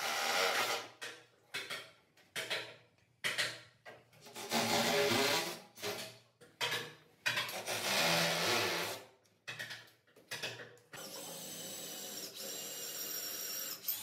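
Cordless rotary hammer drilling into the wall in a series of short bursts and two longer runs. Near the end a cordless drill's motor runs more steadily with a high whine.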